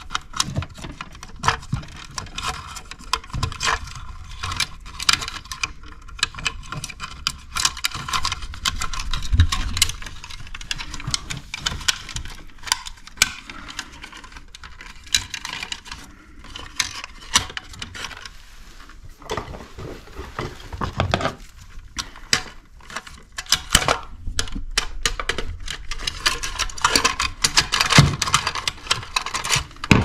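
Handling noise from a plastic two-gang cut-in electrical box and its wires: irregular clicks, taps and rustles as the wires are fed into the box and the box is worked into the hole in the drywall.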